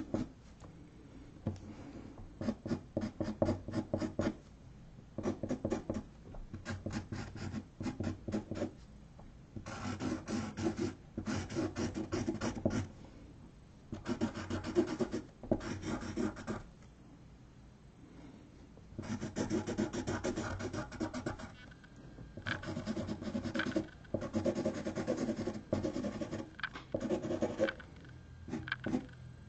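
Black marker tip scratching across a canvas board in quick short strokes, coming in bursts of rapid strokes separated by brief pauses.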